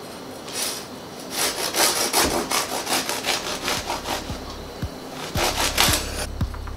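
A long bread knife sawing through the hard crust of a freshly baked artisan loaf on a wooden cutting board. The crust rasps and crackles with each quick back-and-forth stroke. Most strokes come in a run early on, then a few more near the end.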